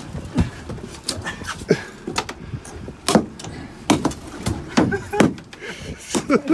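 Irregular thumps and knocks, about ten over several seconds, from a large netted halibut being handled on a boat's deck.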